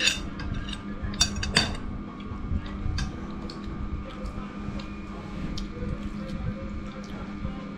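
Metal spoons clinking and scraping on ceramic plates during a meal. There are a few sharp clinks in the first few seconds, then lighter scattered taps over a steady low hum.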